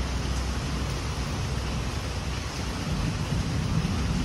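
Steady rushing noise with a low rumble from a large pedestal shop fan running.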